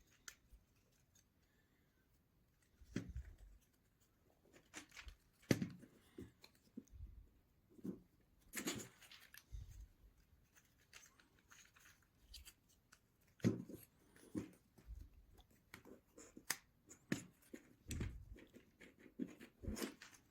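Small basswood model planks and parts being handled and pressed into place, giving light, irregular taps and clicks with brief rustles in between.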